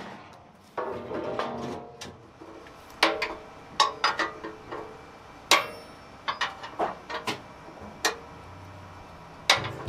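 Irregular metal clanks and knocks as a hand wrench works a bolt on a steel track section, some strikes ringing briefly; the loudest comes about halfway through.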